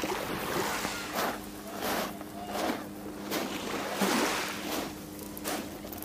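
Small sea waves washing onto a stony shore, the hiss swelling and falling back about once a second, over a faint steady low hum.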